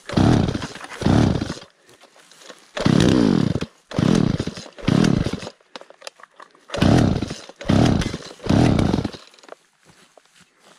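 Two-stroke chainsaw being pull-started cold after priming. About eight quick yanks of the recoil starter cord each crank the engine over in a short whirring burst, and it does not catch.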